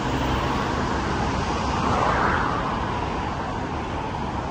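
Road traffic noise, with a car passing that swells and fades about two seconds in.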